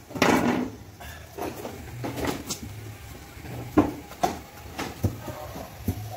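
An aluminium pot lid set down on the ground with a short scraping clatter. Several sharp knocks and clicks follow over the next few seconds.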